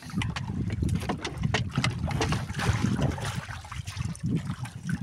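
Water lapping and sloshing against the hull of a small wooden boat, with wind rumbling on the microphone and scattered light knocks and clicks.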